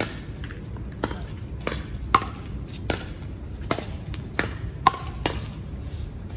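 Pickleball rally: paddles popping a hard plastic ball back and forth in a quick exchange at the net. About nine sharp hits come half a second to a second apart, the loudest a little after two seconds and near five seconds.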